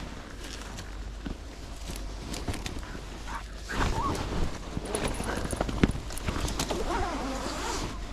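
Rustling and snapping of brush and twigs as someone pushes through undergrowth and handles a barbed-wire fence, while a German Wachtel (Deutscher Wachtelhund) tracking dog whines close by. The whines come in from about halfway through and carry on to the end.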